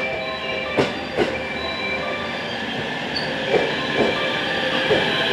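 JR West 227 series 'Red Wing' electric train moving along the platform. Its motors give a steady whine of several tones, and its wheels clack over rail joints in pairs of beats, about a second in, again after three and a half seconds, and once more near the end.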